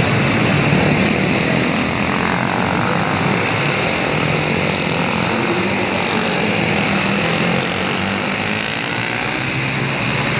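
Several small single-cylinder racing kart engines, Animal-class karts, running hard together on a dirt oval, their pitches rising and falling as they accelerate and lift through the turns.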